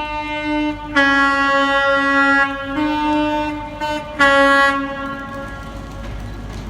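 Train horn sounded in a run of blasts that switch between notes, a short break and then a final loud blast that fades away about six seconds in.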